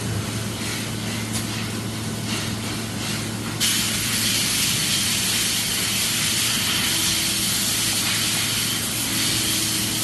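Steady factory hum under a hiss, like air or spray escaping, that suddenly turns much louder and stronger in the high range about three and a half seconds in and then holds steady.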